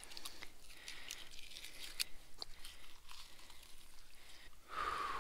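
Knife filleting a rainbow trout on the ice: faint crackling, tearing sounds and small ticks as the blade slices the fillet away from the fish. About five seconds in comes a brief, louder hiss with a faint tone.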